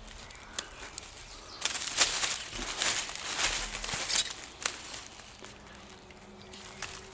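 Paracord being pulled and wound around a green wooden bow-saw frame: a run of rustling, rubbing handling noise from the cord against the branch, from about one and a half seconds in to nearly five seconds, then quieter fiddling.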